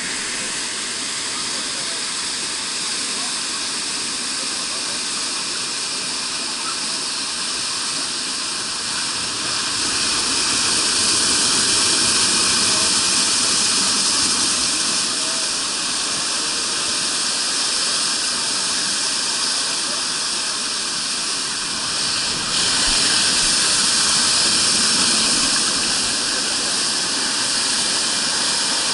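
Water rushing steadily down a water-park slide chute and churning into the shallow landing pool at its foot, an even hiss. It grows louder about a third of the way through and steps up suddenly again later.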